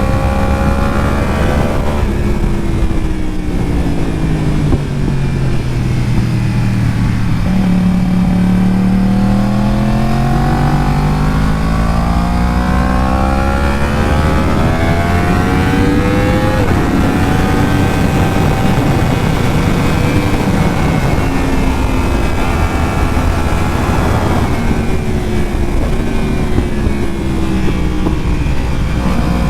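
Yamaha R1's 1000cc inline-four engine riding a track lap. It drops in pitch about two seconds in as the rider comes off the throttle and slows, then climbs steadily as he accelerates out, with a gear change around the middle. It falls again near the end and starts rising once more, over a steady rush of noise.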